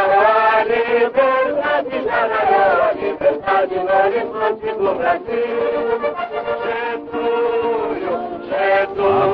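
A group of voices singing a tune with musical backing, in an old recording with no high treble.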